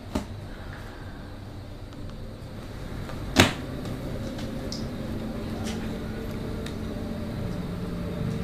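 One sharp knock of an object being handled, about three and a half seconds in, with a few light clicks after it. A low steady hum builds slowly through the second half.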